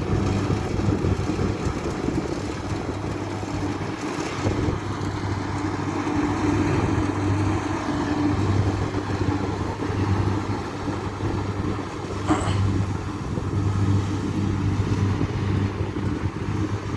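Kubota DC60 combine harvester running steadily as it cuts and threshes rice, its diesel engine giving an even hum. There is one brief click about two-thirds of the way through.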